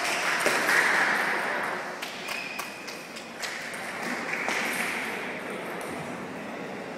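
Table tennis rally: a series of sharp, irregularly spaced clicks as the ball is struck by bats and bounces on the table, over steady background noise.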